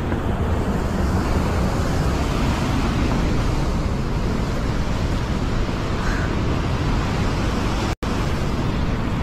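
Ocean surf breaking and washing against the foot of a sea cliff, with wind buffeting the microphone; the sound cuts out for an instant near the end.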